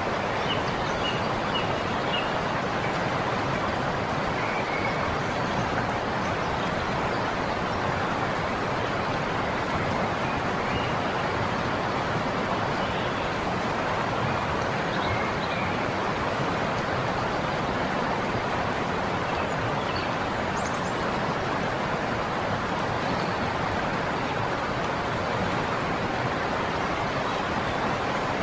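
River water rushing and splashing in a steady, unbroken wash of noise, with a few faint high chirps near the start.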